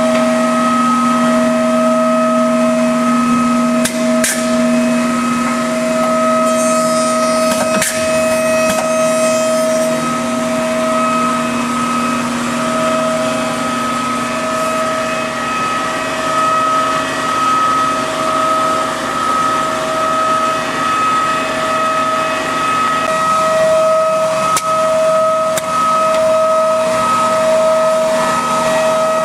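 Maggi 3/50 edgebander running with its conveyor, end-trim and top and bottom trimmer motors on: a steady mechanical hum and whine, one tone pulsing in level, with a few sharp clicks along the way as a panel goes through.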